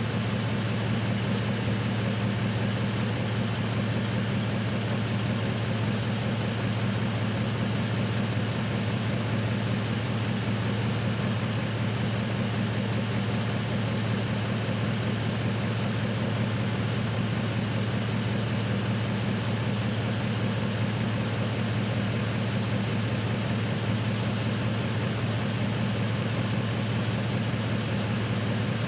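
Truck engine idling steadily, an even low hum that does not change.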